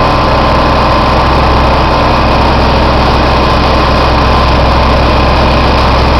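Sawdust collection system running steadily while it discharges sawdust through a fabric sleeve into a bulk bag: a loud, even machine hum with a constant high whine.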